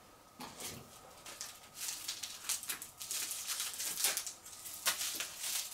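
Crinkly plastic wrapping rustling and crackling in quick, irregular bursts as a small wrapped item is handled and opened with scissors, busier from about two seconds in.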